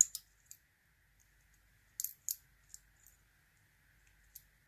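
Scattered sharp, light metallic clicks and taps, a handful over a few seconds with a pair about two seconds in, from lock-picking tools working in an American Lock A1100 padlock.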